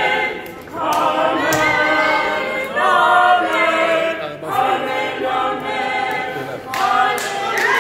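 A small mixed group of teenage girls' and boys' voices singing a cappella in harmony, in phrases broken by short pauses for breath.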